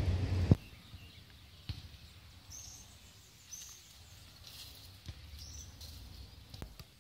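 A loud low rumbling noise that cuts off abruptly about half a second in, then quiet outdoor ambience with a few short, high bird chirps and scattered faint clicks.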